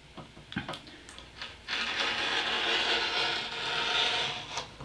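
A few light clicks and taps, then, just under two seconds in, a handheld paper cutter's blade is drawn through a printed sheet: a steady scraping lasting about three seconds.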